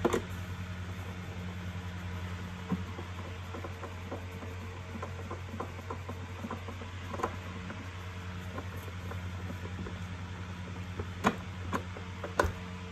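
Scattered light clicks and knocks of hard plastic as gloved hands handle the opened vacuum cleaner housing, with two sharper knocks near the end. A steady low hum sits underneath throughout.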